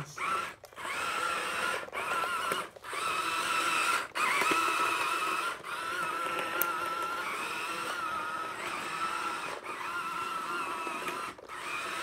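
Toy radio-controlled army tank's small electric drive motors and gearboxes whining as it drives and turns. The whine stops and restarts for a moment about seven times.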